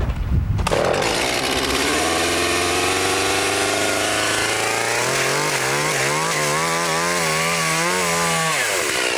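One long, drawn-out human belch lasting about eight seconds. It starts low and rough, jumps higher about halfway through and wavers up and down, then cuts off.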